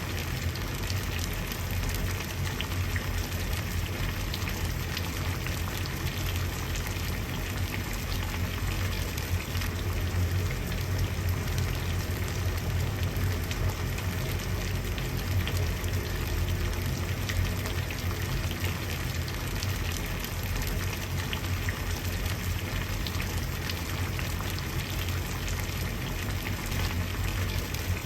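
Water boiling steadily, a dense bubbling and crackling over a low rumble, at an even level throughout.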